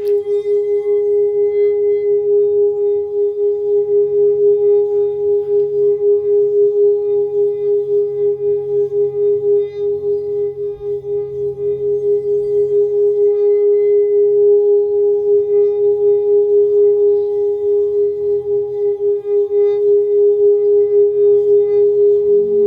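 Singing bowl sounding one long sustained tone with a quick, even pulsing wobble, over a soft low drone.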